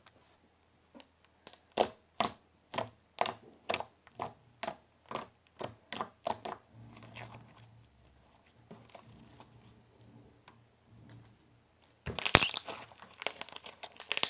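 Crunchy slime squeezed and pressed by hand, giving crisp crackling pops about twice a second, then softer squishing and a dense, louder burst of crackling near the end.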